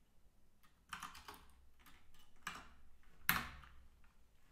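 Typing on a computer keyboard: short clusters of keystrokes with pauses between them, and one louder keystroke a little past three seconds in.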